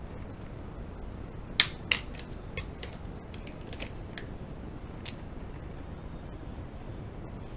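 Plastic clicks and light taps as felt-tip pens are capped, uncapped and swapped: two sharp clicks close together about a second and a half in, then several fainter ticks, over a steady low background noise.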